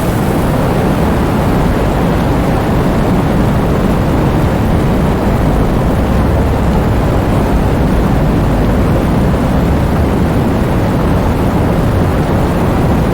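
Wind blowing during heavy rainfall: a steady, loud, deep rush of noise.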